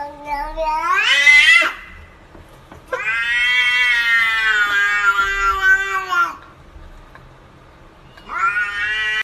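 Domestic cat yowling in long, drawn-out meows that sound like "whyyy": a call rising in pitch at the start, a long one of about three seconds in the middle, and another beginning near the end.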